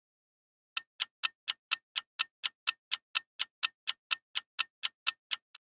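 Clock-ticking sound effect, sharp ticks at about four a second for nearly five seconds, the last one fainter: a countdown timer for answering a quiz question.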